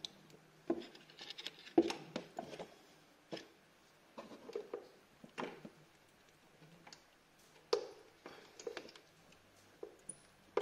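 Scattered metal clicks and knocks from a spark plug socket tool and the screwdriver used as its tommy bar, worked against a spark plug that is still tight. The loudest clicks come about two seconds in and again about eight seconds in.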